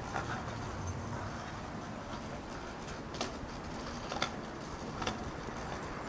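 Street ambience: a steady background hum with a few short sharp ticks or taps, several of them about a second apart.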